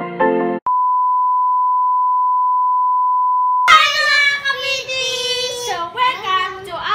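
A steady electronic beep at one pitch, held for about three seconds, just after a short bit of intro music ends. Then two young girls sing and shout loudly and excitedly.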